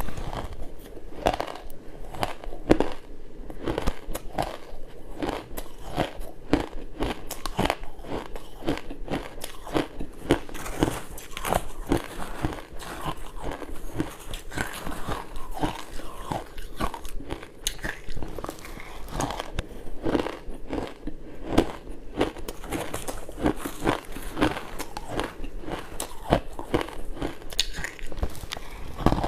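Close-miked crunching and chewing of ice: a steady run of sharp cracks and crackles as the ice is bitten and crushed between the teeth.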